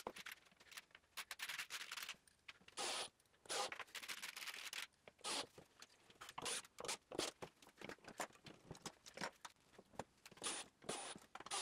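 Faint, scattered short scrapes and clicks of hand work on plywood and tools, coming every second or so.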